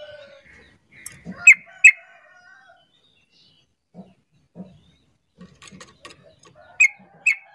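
Yellow-vented bulbul giving short, sharp calls: a pair about a second and a half in and another pair near the end. Soft low taps come in between.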